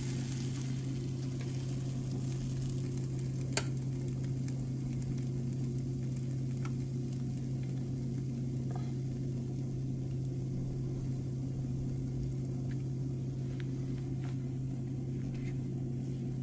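Chocolate pancake batter cooking in a non-stick frying pan on an electric hob: a faint sizzle over a steady low hum, with a small click about three and a half seconds in.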